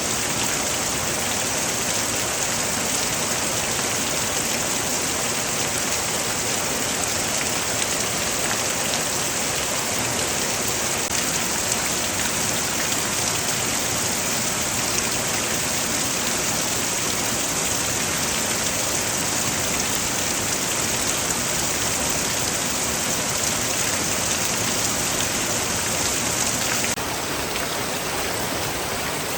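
Heavy rain falling steadily, a dense, even hiss of drops on surfaces. It gets a little quieter and duller near the end.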